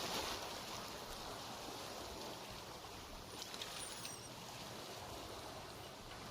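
A steady, even rushing noise, with a few faint high chirps about halfway through.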